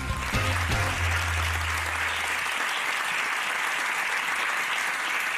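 Studio audience applauding steadily. A low held note left over from the show's theme jingle fades out under the clapping a couple of seconds in.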